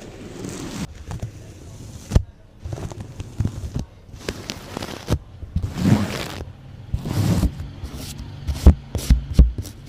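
Close-miked ASMR trigger sounds: irregular scratchy swishes and taps against the microphone, with several heavy low thumps near the end.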